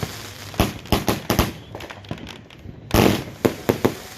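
A Big Champ 150-shot firework cake firing: sharp bangs in irregular volleys, a cluster of four in the first second and a half and another quick run near the end, with crackling between.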